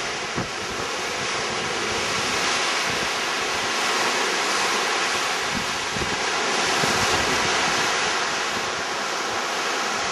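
Water rushing and foaming along the hull of a moving cruise ship, a steady hiss, with wind buffeting the microphone.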